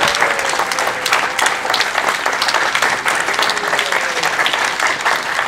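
Audience applauding, breaking in suddenly and going on as a steady, loud, dense clapping.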